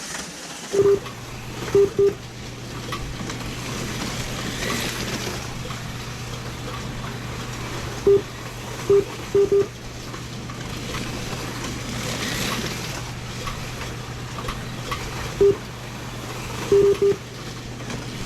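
Short electronic beeps from a race timing system, single and in quick pairs at irregular intervals, typical of a lap counter registering cars crossing the line. Under them runs a steady low hum, starting about a second in.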